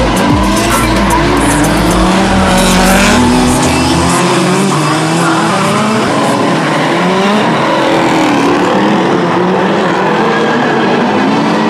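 Drift cars' engines revving hard, their pitch rising and falling over and over, with tyre squeal.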